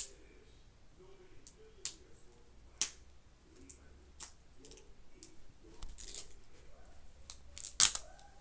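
Plastic wrapping of an L.O.L. Surprise ball being picked at and peeled by hand, giving scattered sharp crackles and snaps, with the loudest crackle near the end.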